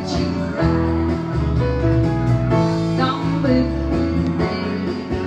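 A woman singing a pop ballad while accompanying herself on a grand piano, with sustained piano chords under the voice.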